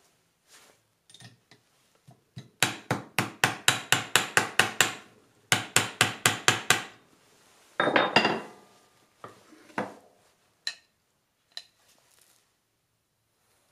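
Hammer rapidly tapping a center punch, about five strikes a second in two runs, driving the idler shaft and its bearing out of a mini mill's gearbox head; then a brief ringing metallic clatter and a few light knocks.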